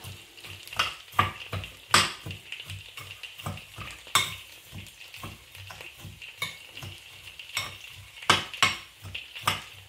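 Metal spoon stirring a crunchy noodle mix in a ceramic bowl, scraping and clinking against the bowl in an irregular run of small clicks, with a few louder knocks.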